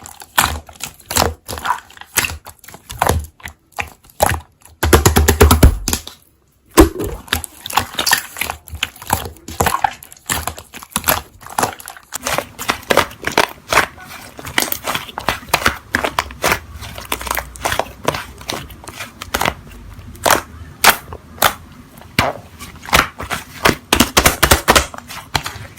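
Slime being squished and stretched by hand: a dense run of irregular crackling clicks and pops as air pockets in the slime burst.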